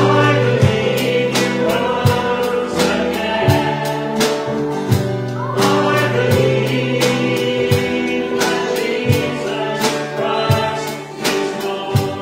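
Congregation singing a worship song together, accompanied by strummed acoustic guitar, bowed violin and electric keyboard, the guitar strums keeping a steady beat.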